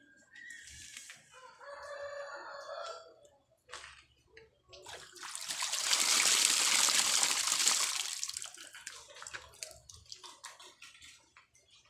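Water poured from a plastic dipper splashing onto a water filter's head fittings, a continuous pour of about four seconds that swells and fades. Before it, a rooster crows once in the background.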